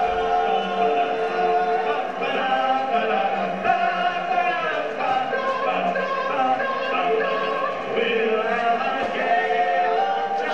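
A group of men singing together into microphones, a vocal group with no obvious instrumental backing.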